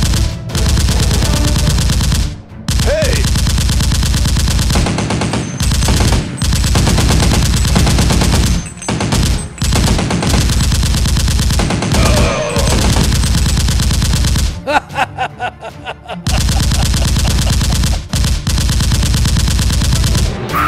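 Automatic gunfire sound effects: long runs of rapid shots broken by several short pauses, the longest about two-thirds of the way in.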